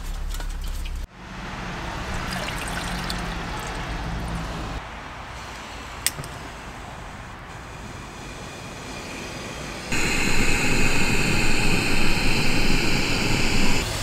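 Water poured into a Jetboil gas stove's cup, then a single sharp click about six seconds in. From about ten seconds the stove's gas burner hisses steadily as it heats the water.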